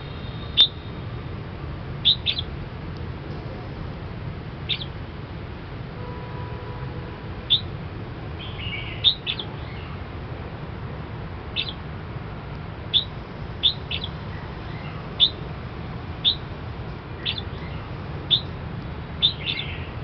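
Red-whiskered bulbul calling: short, high chirps, singly or in quick pairs, roughly once a second, over a low steady background rumble.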